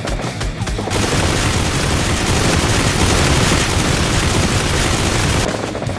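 Dubbed-in battle sound effects: rapid gunfire over a music beat, then about a second in a loud, dense rush of blast noise that holds for some four and a half seconds and cuts off abruptly near the end.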